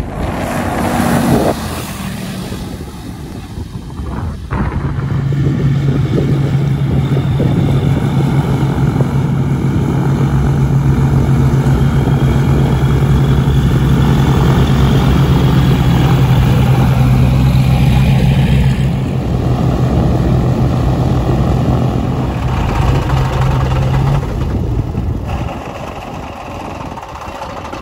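Cessna 404 Titan's twin turbocharged Lycoming piston engines and propellers during landing: a loud steady drone, with a strong low hum from about five seconds in that drops away a few seconds before the end. A single knock comes just before the hum sets in.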